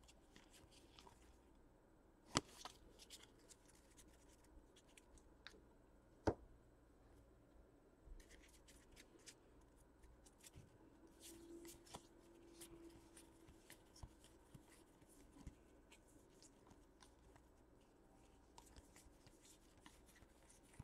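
Faint rustling and light ticks of trading cards being handled and flipped through, with two sharp knocks about two and six seconds in.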